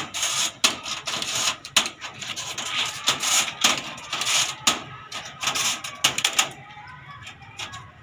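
Scissors snipping through the wire mesh of a wooden cage: a run of sharp, irregular snaps and clicks, thinning out after about six seconds.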